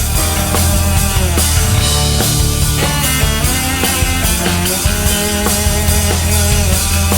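Rock music with a drum kit and pitched instruments playing an instrumental stretch between sung lines.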